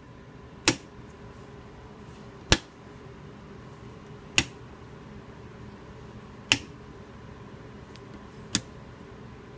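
Rotary shorts-test selector switch on a mutual-conductance tube tester clicking into its detents one position at a time: five sharp clicks about two seconds apart, stepping through the shorts positions to check a tube for shorts between its elements.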